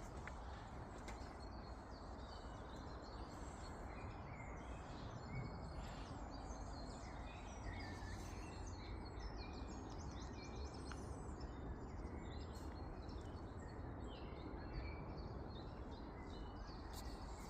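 Woodland birds singing, with many short chirps and trills from several birds throughout. Underneath runs a steady, low rushing noise.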